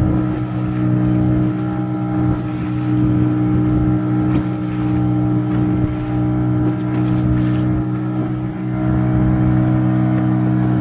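The motor of a wooden open boat running steadily under way, a constant even hum with a water and wind rush beneath it; it dips briefly and then runs a little louder from about nine seconds in.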